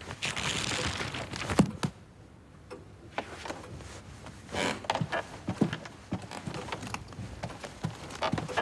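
Footsteps on a hard floor, knocking at an unhurried walking pace about every half second from about three seconds in. A soft hiss of noise and a single sharp click come just before them.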